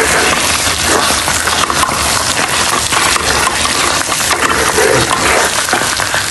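Thick biko, sticky rice cooking down in dark sugary syrup, crackling and bubbling in a pan while a spoon stirs and scrapes through it, with many small clicks and pops.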